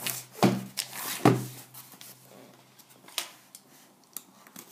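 Cardboard shipping case holding eight boxes of cards being turned over and set down on a tabletop: two solid thumps in the first second and a half, then a few light taps and rubs of hands on the cardboard.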